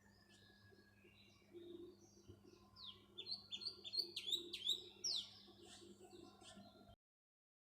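House sparrows chirping: scattered faint chirps, then a loud, rapid run of short downward-sweeping chirps in the middle, fading back to softer calls before the sound cuts off abruptly near the end.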